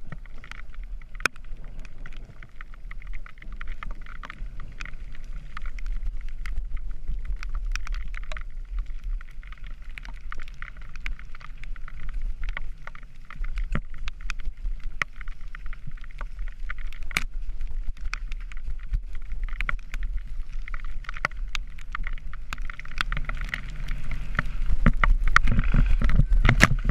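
Mountain bike rolling fast down a wet dirt trail: tyre and trail noise with the bike rattling and knocking over bumps, and a low wind rumble on the camera's microphone. It gets louder near the end.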